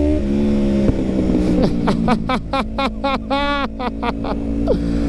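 Yamaha MT-03 parallel-twin engine through a full aftermarket exhaust, revved in a run of quick throttle blips over its steady idle.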